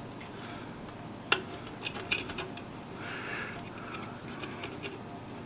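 Small metal tools clicking and tapping on a computer mouse's circuit board while working a stubborn micro-switch loose during desoldering. There is a sharp click about a second in, then runs of light ticks.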